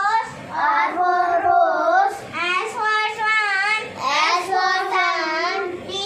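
A young girl's voice reciting the alphabet chart in a sing-song chant, letter and picture-word in turn, in short phrases with brief pauses between them.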